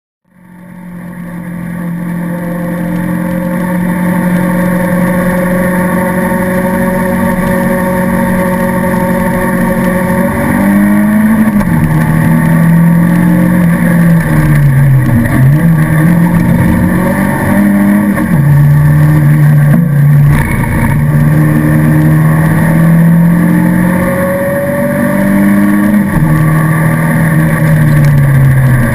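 Race car engine heard from inside the cabin of an Alfa Romeo 155, fading in over the first few seconds. It holds steady revs for about ten seconds, then its pitch rises and drops repeatedly through gear changes as it races in close traffic.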